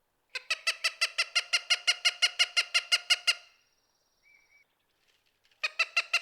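Cooper's hawk giving its rapid kek-kek-kek call: a fast, even run of repeated notes, about six a second, lasting about three seconds, then a second run starting near the end.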